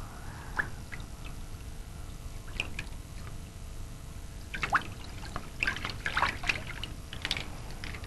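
Water splashing and dripping in a few short strokes over a low steady rumble, the splashes coming thicker in the second half.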